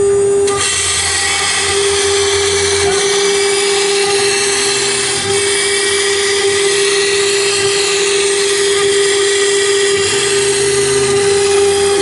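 CNC router spindle running with a steady high whine while its tool works a sheet of glass; a steady hiss joins about half a second in.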